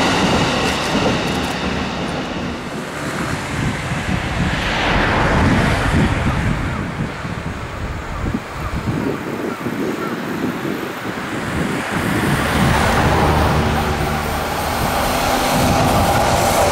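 Steady road-traffic rumble beside the railway line; in the last few seconds a low steady hum joins it as a train draws near.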